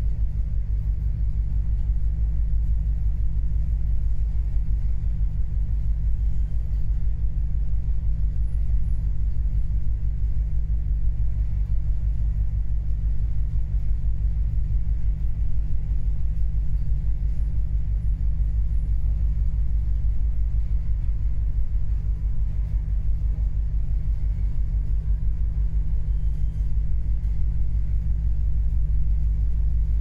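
Steady low rumble of a large container ship under way, its engine and hull vibration carrying through the ship, even in level with no gusts or single knocks.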